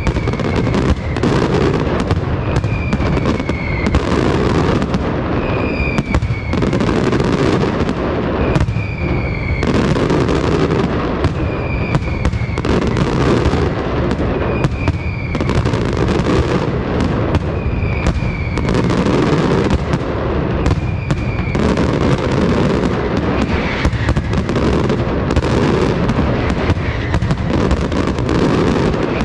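Castillo-style aerial fireworks barrage: many shells bursting in a dense, unbroken stream of bangs and crackle with no pauses.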